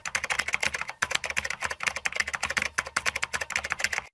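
Typing sound effect: a fast run of key clicks with a brief pause about a second in, cutting off suddenly near the end.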